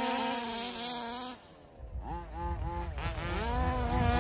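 Gas-powered 1/5-scale RC trucks' small two-stroke engines at high revs: a steady high-pitched whine that drops away about a second and a half in, then from about two seconds repeated throttle blips, the pitch rising and falling.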